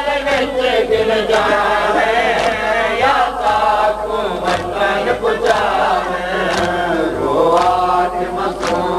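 Voices chanting a noha lament together in a slow, drawn-out line, cut by sharp slaps of hands beating on bare chests (matam) about once or twice a second.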